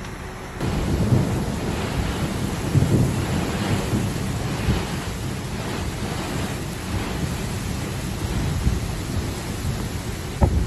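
Heavy rainstorm: a dense hiss of pouring rain with low rumbling, which gets suddenly louder about half a second in. A short loud burst comes near the end.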